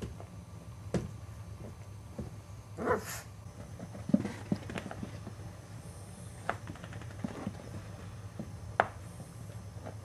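Boxer puppies scuffling in play, with scattered taps and knocks and a brief puppy vocal sound about three seconds in.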